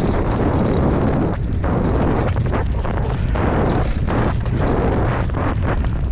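Heavy wind buffeting and rumble on a camera microphone, surging unevenly, as from riding fast downhill on a mountain bike.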